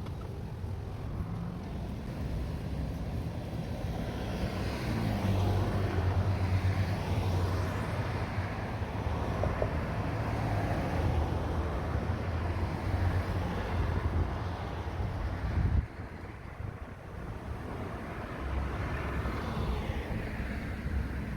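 Outdoor traffic noise: a steady low rumble with vehicles passing by twice, each swelling up and fading away. The sound drops suddenly about sixteen seconds in, then builds again.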